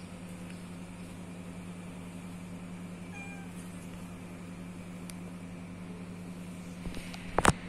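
Steady low hum, with a faint short pitched call about three seconds in. Near the end come a few sharp clicks, the last one the loudest sound.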